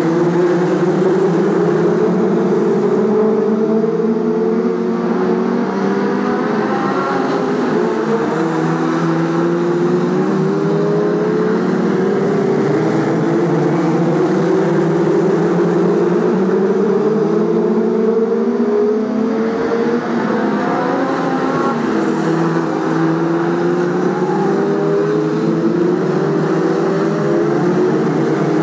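A pack of BriSCA F2 stock cars racing, many engines running at once, their pitch rising over and over as cars accelerate out of the bends.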